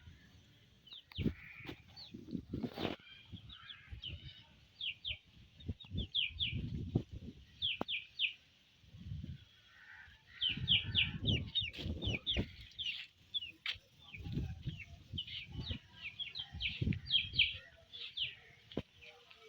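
Baby chicks peeping: many short, high cheeps that fall in pitch, coming in quick runs with pauses. Low thumps and rumbles come and go between them.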